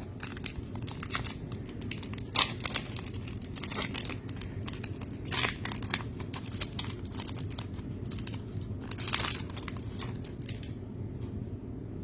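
Packaging of a blaster box of basketball trading cards crinkling and tearing as it is opened, in irregular rustles with a few louder rips; it dies down near the end.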